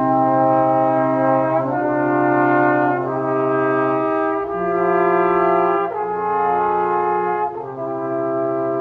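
A trio of trombones playing slow held chords together, moving to a new chord about every one and a half seconds.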